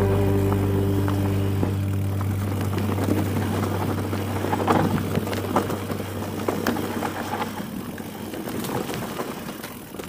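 Mountain bike rolling down a dirt forest trail: tyre noise on dirt with frequent rattles and knocks from the bike, gradually fading out. Guitar background music fades out in the first two seconds.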